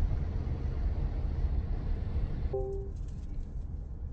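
Road noise inside a moving car: a steady low rumble from the tyres and engine on a rough, off-road stretch of road. The higher hiss cuts off about two and a half seconds in, with a brief pitched beep at that moment.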